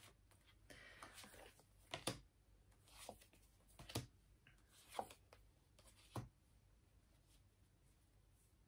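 Faint handling of tarot cards on a table: a soft sliding rustle, then light taps about once a second as cards are moved and laid down.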